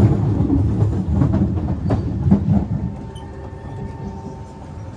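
Inside a Kawasaki–Kinki Sharyo C151 MRT train running on the track: a heavy rumble with wheels clicking over rail joints, easing off about three seconds in while a steady whine carries on.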